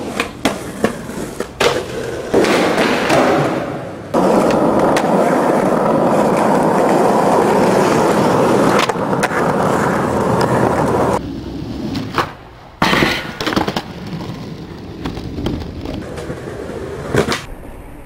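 Skateboard: sharp board clacks and slaps for the first few seconds, then wheels rolling loudly and steadily for about seven seconds, stopping suddenly, followed by more scattered clacks.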